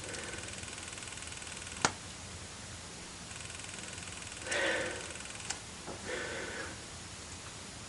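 Clicking from a Canon 580EX II flash running on a Pixel TD-381 external battery pack: one sharp click about two seconds in, then a short rustling burst, a small click and another soft burst past the middle.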